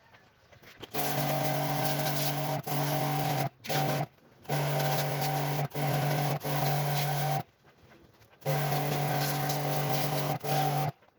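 A motor-driven machine running with a steady hum and hiss, starting and stopping abruptly again and again in stretches of one to three seconds.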